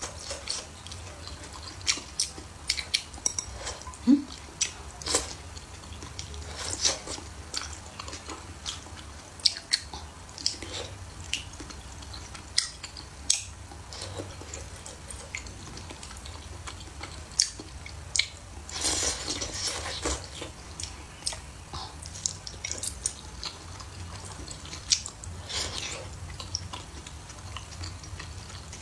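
Close-miked chewing and slurping of wontons in chili-oil broth: many sharp, wet mouth clicks and smacks, with a couple of longer, noisier stretches about 19 and 25 seconds in.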